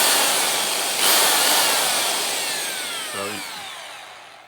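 Black & Decker corded hammer drill motor running with a fresh bit in the chuck, given a second burst of the trigger about a second in, then released and spinning down with a falling whine that fades over about three seconds.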